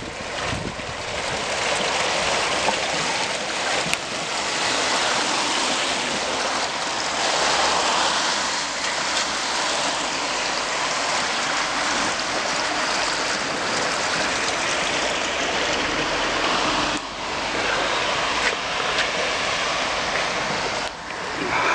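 Storm floodwater rushing steadily, a continuous noise of running water.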